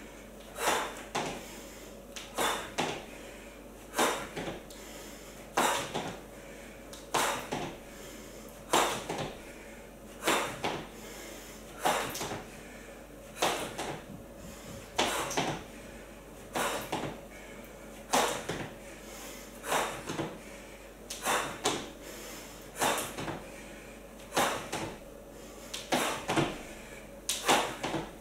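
Sneakers landing on a wooden floor during jump squats with a mini band: thuds in a steady rhythm, mostly in pairs, about every second and a half.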